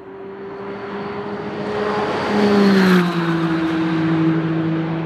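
McLaren Artura GT4 test car's twin-turbo 3.0-litre V6 passing by at a steady engine speed, growing louder to a peak about three seconds in, where its pitch drops as it goes past, then fading.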